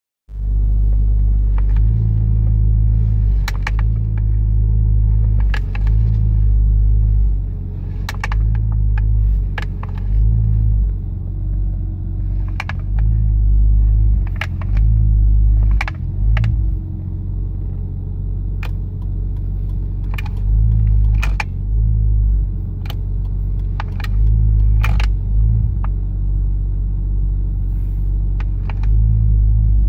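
Sharp, irregular clicking, every second or two and sometimes in quick pairs, from a Nissan Skyline R33 GTS-T's aftermarket HKB steering boss and OMP steering wheel. Underneath is the steady drone of the car's engine, swelling and easing.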